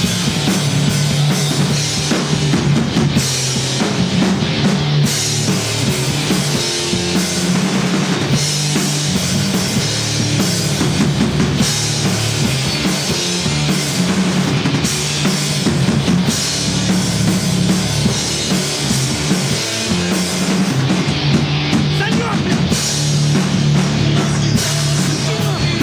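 Rock band playing live, a full drum kit keeping a steady beat under the rest of the band.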